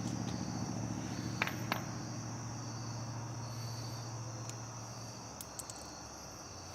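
Crickets chirping steadily at night, with a low hum that fades out about five seconds in and two light clicks about a second and a half in.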